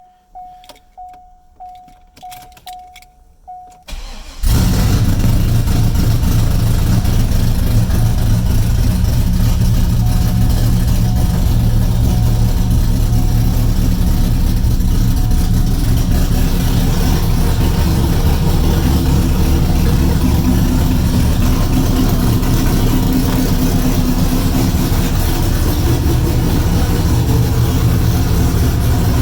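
A short electronic beep repeats quietly for about four seconds. Then a 2002 Corvette's LS1 V8, fitted with an aftermarket cam and long-tube headers, cranks and fires, and settles into a steady, loud idle.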